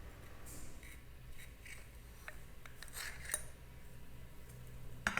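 Faint scattered metal clicks and scrapes of a worn, rusty Desert Eagle pistol being handled, over a low steady hum; a sharper tick about three seconds in and a louder scrape near the end.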